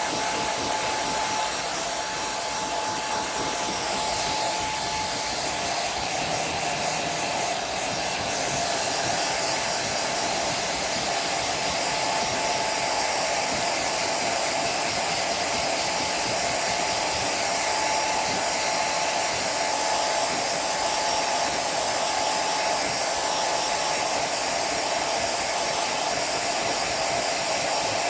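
Hair dryer running steadily, a constant blowing with a steady whine that drops slightly in pitch about five seconds in.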